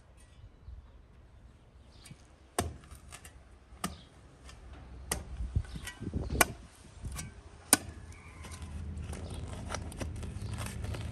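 A series of sharp chopping knocks, five loud strikes about a second and a quarter apart, with lighter clatter between them.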